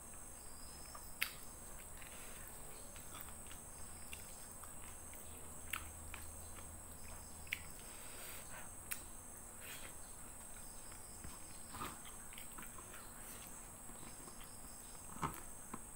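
Quiet eating by hand: scattered soft mouth clicks and smacks of chewing, about six in all, over a faint steady hiss with a thin high-pitched drone in the background.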